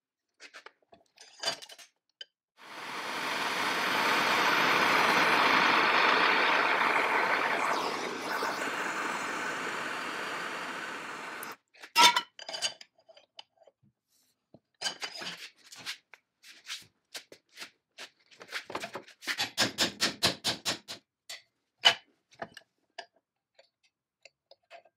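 Small steel parts clinking and tapping against the jaws of a steel bench vise, with a quick run of light taps about two-thirds of the way through. Before that, a steady rushing noise swells in, runs for about nine seconds and cuts off suddenly.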